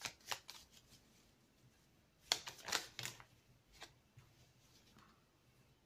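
A deck of oracle cards being shuffled by hand: quick papery card strokes in short runs, the loudest run about two seconds in, then quieter toward the end.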